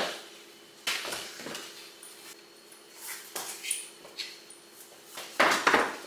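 Intermittent handling noises: short knocks and rustles of things being picked up and moved, the loudest a quick cluster near the end, over a faint steady hum.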